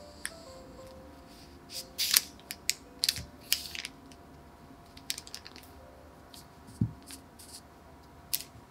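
Ceramic knife cutting through a log of cookie dough on parchment paper: a series of crisp scraping and crackling clicks, with one dull knock about two-thirds of the way through. Soft background music runs underneath.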